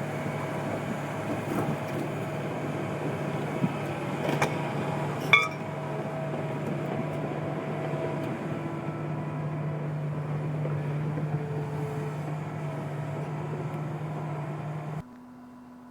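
Caterpillar 973C track loader's diesel engine running steadily as a low hum, with two sharp clanks about four and five seconds in. The sound drops off abruptly about a second before the end.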